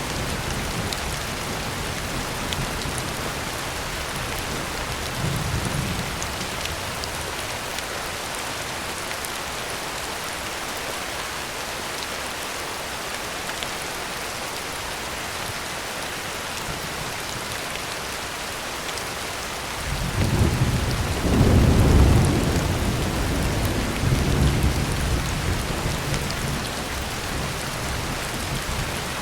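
Heavy rain drumming steadily on a tin roof, an even hiss throughout. A deep thunder rumble rolls in about two-thirds of the way through, is loudest a couple of seconds later and dies away over several seconds. Fainter low rumbles come at the start and around six seconds in.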